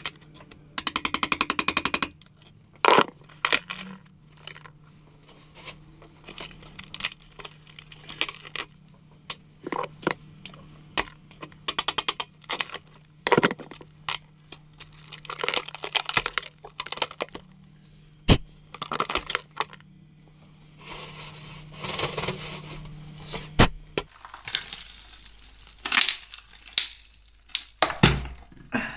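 Metal hand tools knocking, scraping and clinking against a window's wooden surround and render, as rotten wood is pried and broken out in irregular sharp knocks, with a short rapid rattle about a second in.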